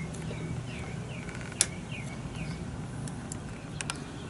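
Light metal clicks of a steel pick against a motorcycle clutch hub and its snap rings: one sharp click about a second and a half in, and a few lighter ticks near the end. A bird chirps repeatedly in the background during the first half.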